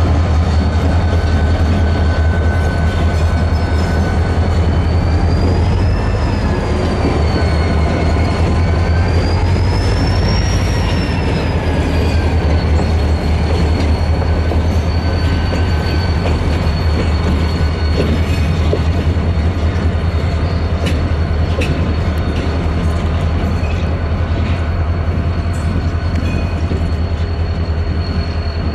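Lake State Railway freight train rolling on the rails with a steady low rumble and a high wheel squeal that swings up and down twice, then holds level. Scattered clicks come in during the second half.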